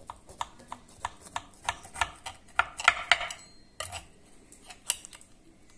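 A knife cutting a slice of treacle tart in a fluted glass flan dish: irregular crunching clicks and scrapes as the blade works through the biscuit base and knocks against the dish, busiest around the middle.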